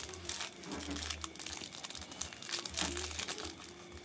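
Thin plastic card-pack wrapper crinkling and rustling as hands handle it and the trading cards, a dense run of small crackles.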